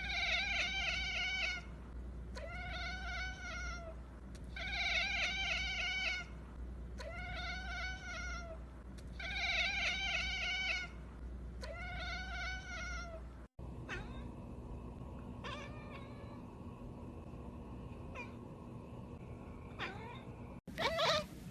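Kitten meowing: six long, arching meows about two seconds apart, then fainter short calls with a few clicks, and louder, quickly rising meows near the end.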